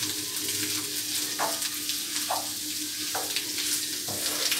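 Squid and onion filling sizzling in a frying pan over a gas burner while a wooden spoon stirs it, with short scrapes and knocks of the spoon among the steady sizzle.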